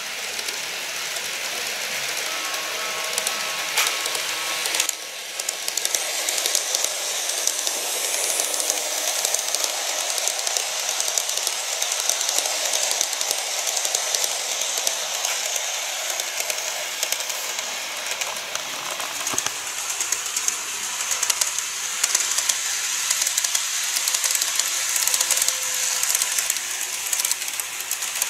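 KATO model electric trains running on the track: a steady whirring hiss of motors and wheels with a constant patter of small clicks from the wheels over the rail joints. A faint steady motor whine is heard in the first few seconds.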